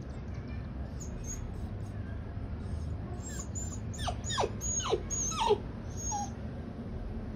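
Dog whining in a run of short, high whimpers, each sliding down in pitch, starting about three seconds in: a dog too scared to take the stairs.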